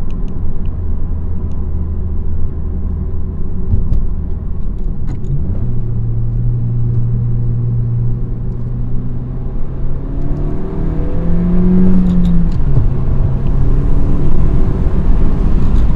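10th-gen Honda Civic Si's 1.5-litre turbocharged four-cylinder breathing through a PRL Cobra cold air intake, heard from inside the moving car with the windows down. The engine pulls steadily, then rises in pitch under acceleration about ten seconds in, peaking a couple of seconds later before dropping back.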